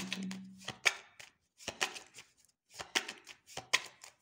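A deck of tarot cards being shuffled by hand: an irregular run of crisp card snaps and flicks, several a second.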